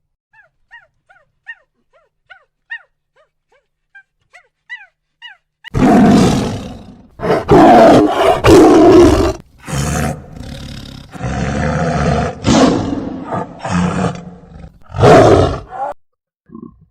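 Faint, short high squeaks, then, about six seconds in, a large animal's loud, rough roaring calls, several long ones in a row.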